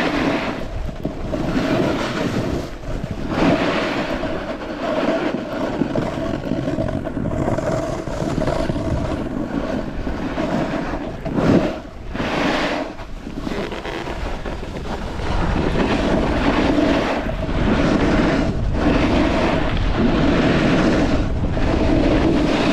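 Snowboard sliding over soft, wet snow: a continuous rushing scrape that swells and eases through the turns, with wind buffeting the microphone.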